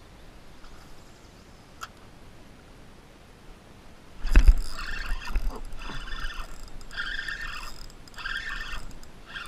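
A sudden heavy thump about four seconds in, then a Shimano Sahara 2500 spinning reel cranked in five short spurts of whirring, about one a second, as a hooked bass is played in on the line.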